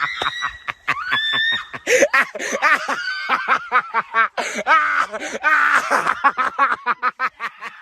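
People laughing hard in quick repeated bursts, with high-pitched shrieks.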